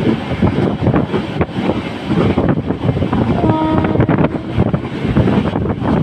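Express train running at speed, heard from an open coach door: rumble and rapid clatter of wheels on the rails with wind buffeting the microphone. A little past halfway, the WAP-7 electric locomotive's horn gives one short, steady note lasting about a second.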